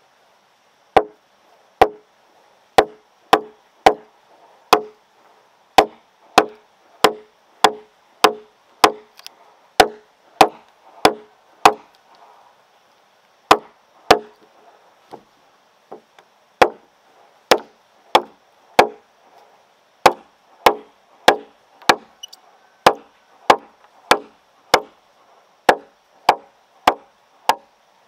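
A blade chopping a notch into a round wooden pole: sharp, loud chops, roughly one to two a second, with a couple of short pauses in the middle.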